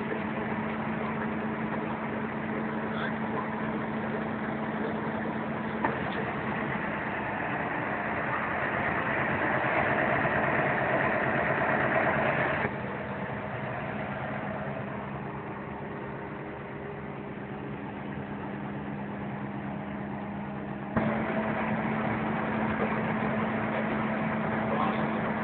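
Claas Jaguar 840 forage harvester running close by at work in maize: a steady engine drone with a low hum. The sound drops abruptly about 13 seconds in and comes back just as suddenly about 21 seconds in.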